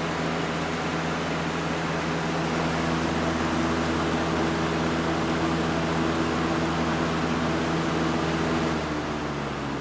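Lakewood box fan running on high with its grille off: a steady rush of air over a motor hum with several low tones. Near the end the level dips slightly and the hum's pitch drops.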